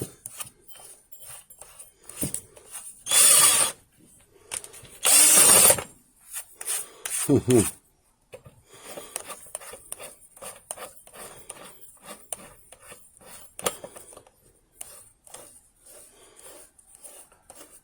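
Metal tools and sockets clinking and scraping while a socket is tried on an electric drill and against the generator's nut, with two short loud bursts of noise about three and five seconds in.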